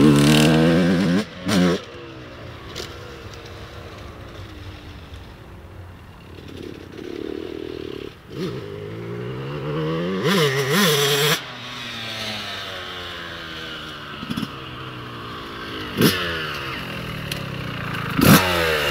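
Motocross dirt bike engine revving as the bike rides off, then running more faintly out on the track, with quick rises and falls in revs about ten seconds in. A few sharp knocks come near the end as the bike comes back close.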